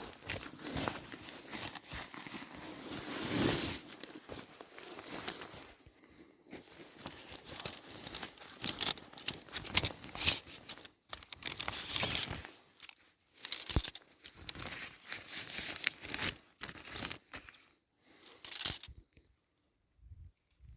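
Tent fabric rustling and crinkling in irregular bursts as a tent is pitched, with a few sharp knocks and clicks from the poles or pegs; it goes quiet near the end.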